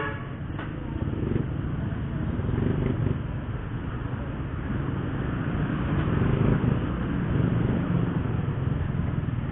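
Honda RS125fi's single-cylinder four-stroke engine running at low speed in slow traffic, its note rising and falling a little.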